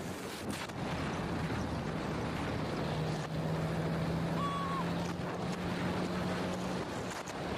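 Motorcycle engine running steadily at cruising speed, with wind rushing over the microphone. A short high tone sounds about halfway through.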